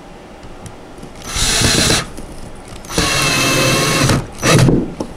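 Cordless drill driving a screw into a wooden footrest rail in three bursts: a short one about a second in, a longer one about three seconds in, and a brief final one near the end.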